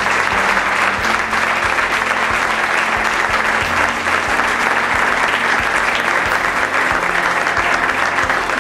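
An audience applauding steadily, with music with a steady beat playing underneath.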